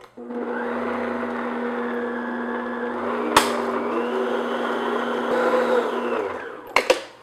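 Stand mixer with the whisk attachment running steadily on medium speed, whipping cream cheese frosting. There is one sharp click about three and a half seconds in. The motor winds down about six seconds in, followed by a few light clinks near the end.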